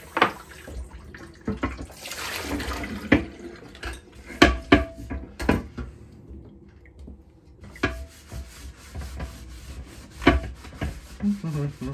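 Kitchen tap water running over a large ribbed grill plate in a sink while it is scrubbed, with about eight sharp knocks and clatters as the plate and brush bump against the sink.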